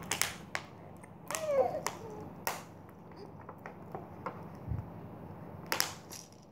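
Thin plastic water bottle crackling and clicking in a toddler's hands: a few separate sharp crackles with quiet gaps between them, the loudest cluster near the end. A short vocal squeal from the child about a second and a half in.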